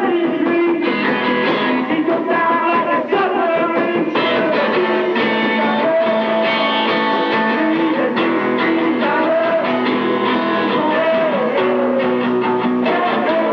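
A small live band playing an upbeat song, with guitar and a wavering melody voice or singing over a steady accompaniment. The recording is muffled, with no high treble.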